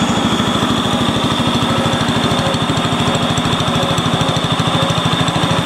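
Small garden tractor engine running steadily, with a rapid, even firing beat.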